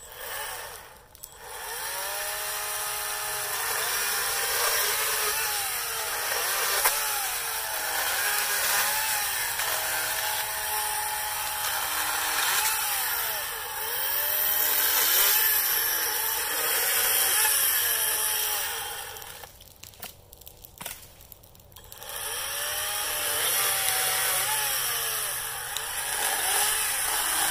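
Atlas 40V cordless electric chainsaw cutting through a conifer's trunk and limbs. Its motor whine rises and falls in pitch as it revs up in thicker wood, where the battery senses the load and gives it more power. It lets off briefly about two-thirds of the way through, then cuts again.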